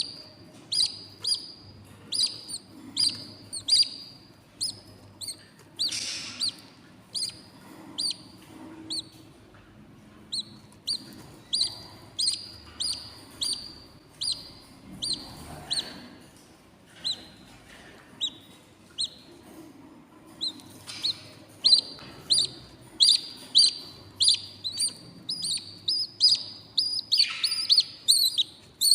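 Six-day-old budgerigar chicks cheeping in the nest box: a steady run of short, high-pitched begging peeps, about two a second. The peeps thin out midway and grow louder and faster near the end, the hunger calls of chicks wanting to be fed.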